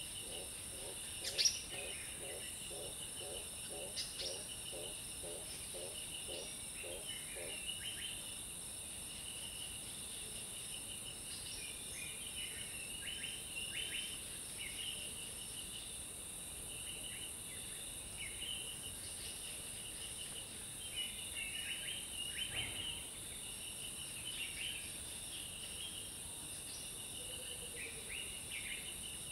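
Rainforest ambience: a steady high drone of insects with scattered bird chirps and calls throughout. A low call repeats about twice a second for the first seven seconds or so, then stops.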